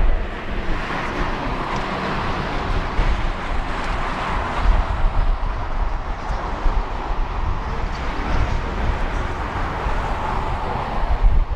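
Strong gusty wind buffeting the microphone, a rough low rumble over a steady rushing noise that swells and eases.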